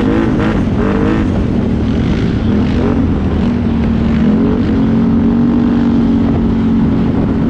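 Can-Am ATV engine running on a trail ride, its revs climbing just after the start and again about four and a half seconds in, then holding steady.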